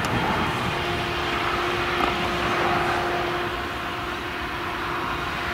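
Claas Jaguar 970 forage harvester, its MAN V8 engine working under load while it chops maize, a steady dense drone with a constant whine held over it.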